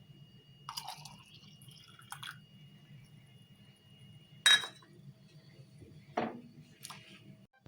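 Homemade pine cone syrup being poured into glass jars, with about five separate clinks of glass against glass or utensil, the loudest about four and a half seconds in with a short ring.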